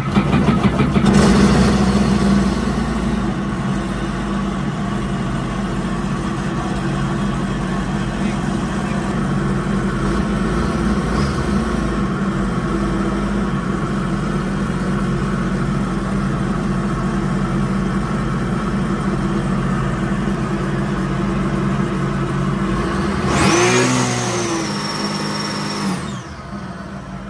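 Mini jet boat engine starting and running at a fast idle, out of the water on a garden hose for a flush test. About 23 seconds in it revs up sharply, holds for a couple of seconds, then falls back.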